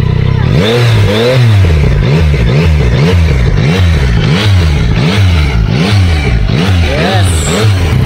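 Yamaha MT-09's inline three-cylinder engine on its stock exhaust. It idles, then from about half a second in is revved in quick throttle blips, about two a second, each rising and falling back in pitch.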